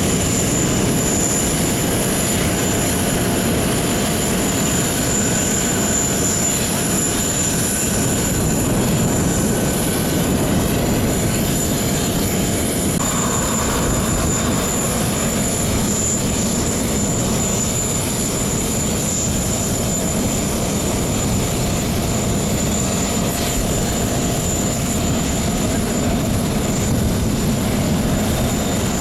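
Joby eVTOL air taxi's electric propellers running, a steady, unchanging noise with thin high-pitched tones held throughout.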